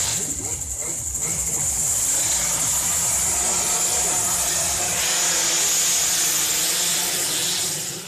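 Two-stroke underbone road-race motorcycles running at high revs, under a loud steady hiss.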